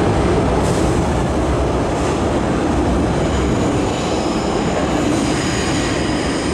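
MTR M-Train electric multiple unit running through an underground station platform without stopping: a steady, loud rumble of wheels and motors behind the platform screen doors. From about halfway, several high, thin steady tones join in as the last cars pass.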